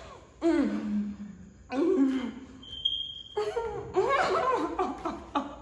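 Women's voices making drawn-out, wordless exclamations and laughing, then overlapping chatter in the second half, with a brief high thin tone near the middle.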